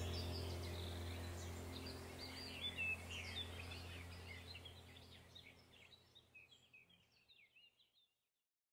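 Birds chirping over a low steady hum, the whole sound fading out gradually and gone about six or seven seconds in.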